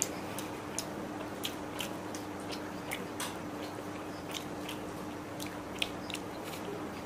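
Close-up eating sounds: fried rice being chewed and gathered by hand on a paper plate, a scatter of short soft clicks and smacks a few times a second. A steady low hum runs underneath.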